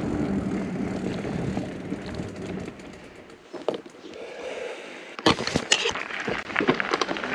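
LaMere Diode e-mountain bike ridden along a dirt forest trail: tyres rolling and the bike rattling, with a run of sharp clatters over bumps in the last couple of seconds.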